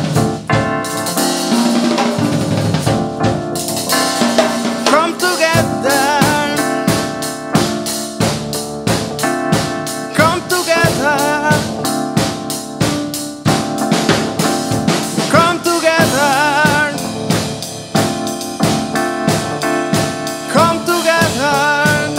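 Drum kit and electric keyboard playing an instrumental passage: a steady beat on snare, rimshots, bass drum and cymbals under held keyboard chords. From about five seconds in, a melody with a wavering pitch comes in over them several times.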